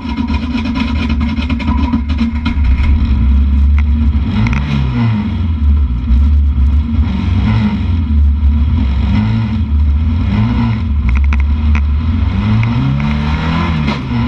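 Folkrace car's engine running hard at high revs, heard from inside the cabin, the revs dipping and climbing again about four seconds in and near the end. Sharp clicks and knocks are heard over it.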